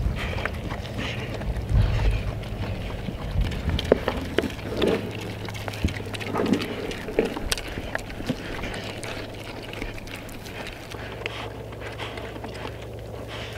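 Young pigs eating pelleted feed from rubber tubs: irregular crunching, clicking and nosing through the pellets, with a few louder short sounds around the middle. Wind rumbles on the microphone for the first few seconds.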